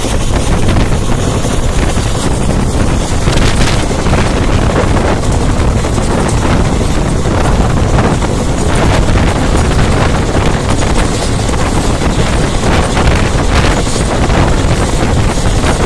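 Express passenger train running at full speed, heard from the coach window: loud, steady wind noise on the microphone over the running rumble of the train.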